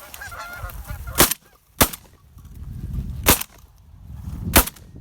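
Canada geese honking, then four shotgun blasts in quick succession as the hunters fire on the flock. Each blast is followed by a low rumbling echo.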